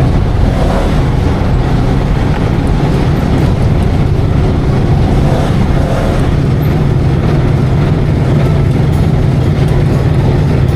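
Heavy engine of a river ferry running steadily: a loud, continuous low drone with an even rumble and no changes in pace.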